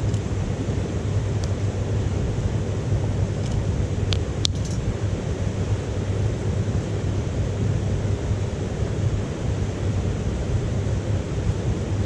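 Wood fire burning in a small titanium wood stove, giving a few faint crackles and pops, the clearest pair about four seconds in, over a steady low rumble.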